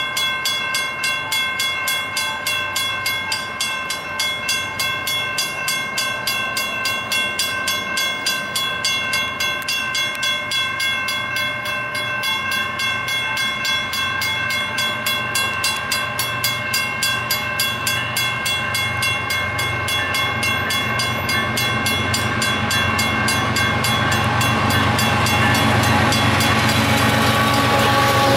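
Railroad grade crossing bell ringing with steady, evenly spaced strokes. A train's rumble grows louder over the last few seconds as it approaches the crossing.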